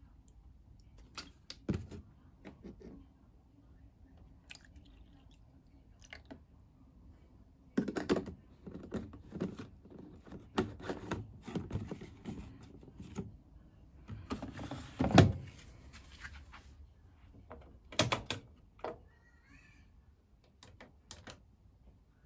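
Bosch WFCX 2460 front-loading washing machine washing a blanket: irregular thuds and knocks as the drum turns, over a faint low hum. The thuds come thickest in the middle of the stretch, and the loudest comes with a brief swish about two-thirds through.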